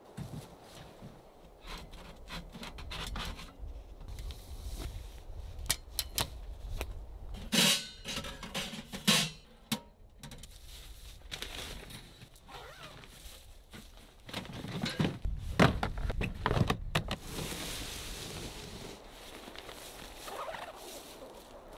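Camp gear being packed up: scattered knocks and clatter of metal and plastic gear being handled, with a stretch of tent fabric rustling about two-thirds of the way through.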